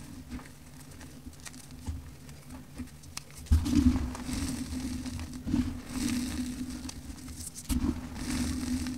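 Fingers crumbling and squeezing dry, clumpy powder, giving soft crunching and pattering of falling crumbs. It grows louder and busier about a third of the way in, with a few sharper crunches.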